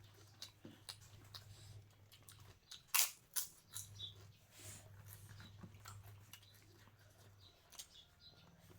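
Person eating close to the microphone: irregular chewing clicks and small crunches, with a louder crack about three seconds in, over a steady low hum.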